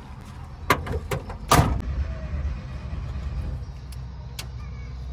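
Volkswagen Kombi van's engine idling with a steady low rumble. A couple of knocks are followed by the driver's door slamming shut about a second and a half in, then a few light clicks.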